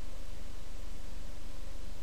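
Steady hiss with a low hum and a couple of faint steady tones, unchanging throughout, with no distinct events.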